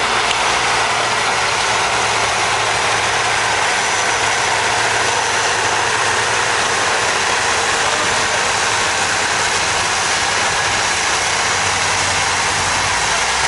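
Diesel engine of a SAME farm tractor working hard at a steady pitch as it hauls a weight-transfer pulling sled, a loud even noise that holds throughout.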